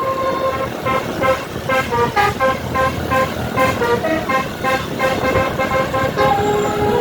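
Basuri multi-tone 'telolet' horn on a tour bus playing a tune: a held note, then from about a second in a quick run of short notes jumping in pitch, settling on a lower held note near the end, over the bus's road noise.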